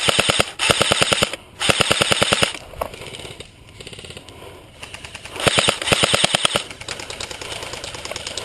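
Airsoft guns firing full-auto in several short bursts of rapid, evenly spaced shots, with a lull in the middle. Fainter rapid fire follows near the end.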